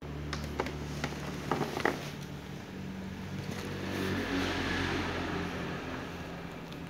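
A plastic bag crinkling and clicking as a kitten paws and noses at it, sharpest in the first two seconds, over a steady low mechanical hum.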